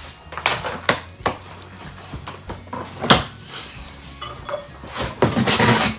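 A cardboard carton being cut and pried open with a knife: a few sharp scrapes and knocks, then a tearing sound lasting about a second near the end.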